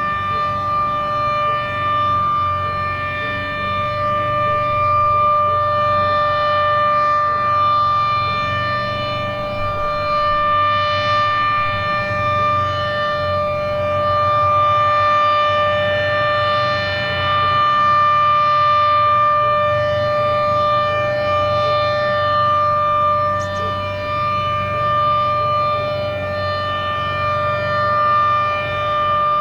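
Federal Signal Model 7B rotating outdoor warning siren sounding its steady Alert tone, held at one pitch. The level swells and fades gently as the rotating horn sweeps past.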